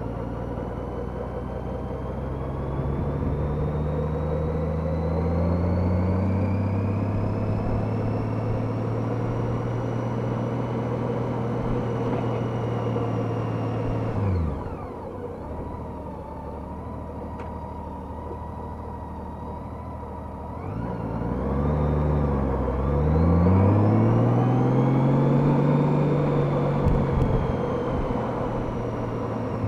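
Honda F6B's flat-six engine under way, its pitch rising slowly, then falling sharply as the throttle closes about halfway through. After several seconds at low revs it climbs again with a brief dip for a gear change and holds steady, then drops off at the very end, over steady road and wind noise at the helmet camera.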